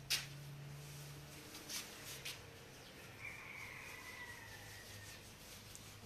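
Tree branches snapping as they are pulled by hand: a sharp crack just after the start and two lighter snaps about two seconds in. About halfway through comes a faint, drawn-out falling whistle, over a low steady hum.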